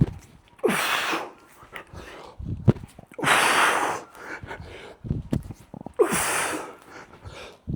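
A man's sharp, forceful exhalations, three in all, about every two and a half to three seconds, one with each rep of snatches. Short knocks come between the breaths.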